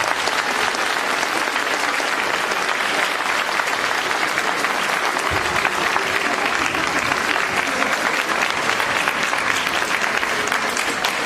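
Audience applauding steadily: the dense closing applause of a stage performance.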